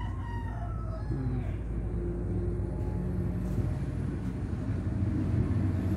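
Low, steady engine hum, like a motor vehicle running nearby, growing slightly louder toward the end.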